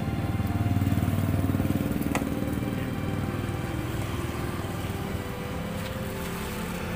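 Small engine running with a fast low pulse, getting louder about a second in and easing off, with a single sharp click just after two seconds.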